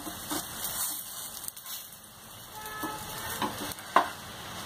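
Paratha sizzling in ghee and mustard oil on a flat iron tawa as it is pressed with a perforated metal spatula. A single sharp click about four seconds in, the spatula knocking the pan.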